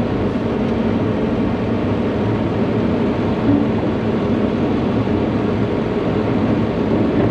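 Volvo excavator's diesel engine running steadily, heard from inside the cab as the boom and bucket move.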